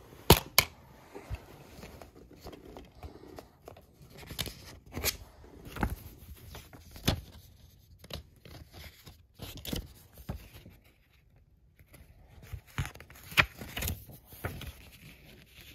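A plastic DVD case and its paper booklet being handled: scattered sharp clicks and snaps, with pages rustling as the booklet is leafed through.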